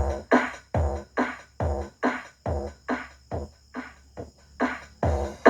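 Dance remix music with a steady pounding beat, about two beats a second, played through a home-repaired paper-cone loudspeaker during its sound check. The beat thins out for about a second past the middle, then comes back hard.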